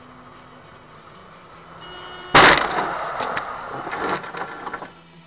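A car collision recorded from inside a dashcam car: low engine and road noise, then a sudden loud crash about two seconds in. The crash is followed by a quick run of knocks and rattles that dies away within a few seconds.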